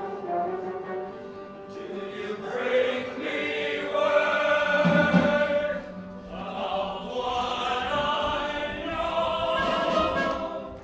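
Stage-musical score with a chorus of voices singing sustained notes together.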